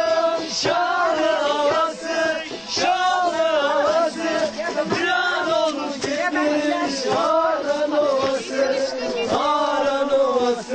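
A group of men singing a Turkish folk song together, with a sustained melody line running throughout.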